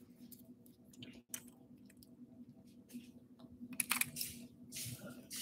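Faint clicks and rustles of hands working fishing line and a lure while tying a knot, with a few short louder rustles in the second half, over a steady low hum.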